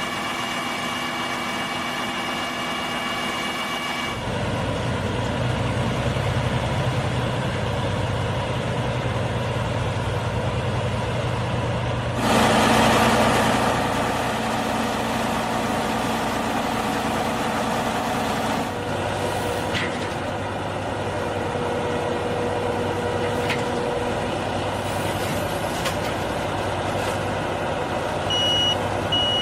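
Bakhsish 930 combine harvester running steadily, its sound changing about four seconds in, with a brief louder surge around twelve seconds in. A reversing alarm starts beeping near the end.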